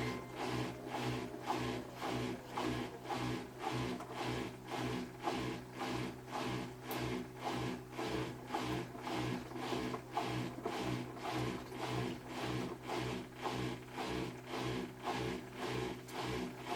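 Samsung washing machine running a wash: a steady motor hum under an even, rhythmic churning as the drum turns, roughly two pulses a second.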